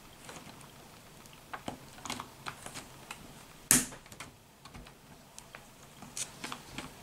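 Plastic K'nex rotary press being cranked through a print, its rollers and wine-bottle plate turning with irregular clicks and clacks of the plastic parts, and one louder knock about halfway through.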